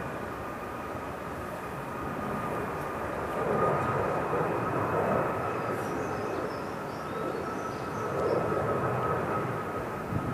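A steady mechanical drone with a thin, steady whine above it, swelling and easing a little twice.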